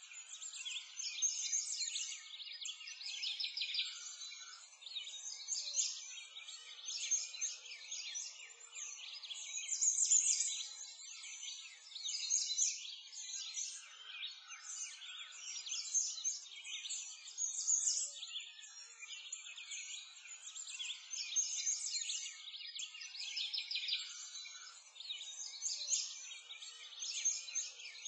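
A continuous chorus of many small birds chirping and singing, all high-pitched with nothing low underneath.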